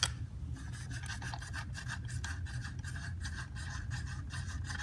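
Flash hider being unscrewed from the barrel of a .410 AR-style upper: a click, then a continuous rapid rasping of metal threads rubbing as it turns.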